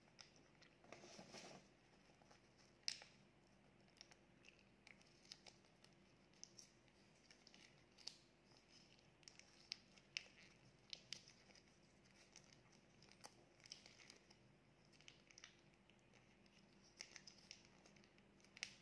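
Faint, scattered crackles and small sharp clicks of a small plastic condiment sachet being crinkled and torn as it is emptied over a pizza slice. The sharpest crackle comes about three seconds in.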